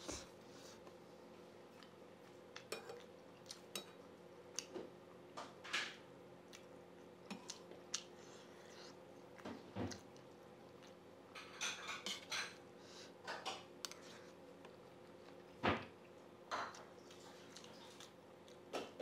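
Steel spoon clinking and scraping against a metal plate as rice and curry are scooped up, in scattered short clicks, the loudest about three-quarters of the way through, over a faint steady hum.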